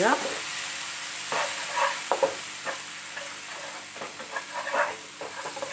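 A slotted spatula stirring and scraping thick sambar masala paste around a nonstick frying pan, the paste sizzling in hot coconut oil under a steady hiss. Short, irregular scrapes, several a second, come as the masala is fried down with tamarind water.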